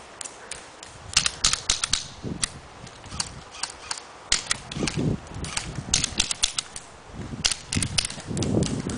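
Airsoft guns firing single shots: sharp clicking cracks in quick runs of several, about a second in, again around six seconds and near the end, with a few dull thumps in between.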